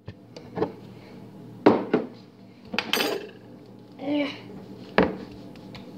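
A small spoon knocking and clinking against spice jars and a mixing bowl: about half a dozen separate, sharp knocks at irregular intervals.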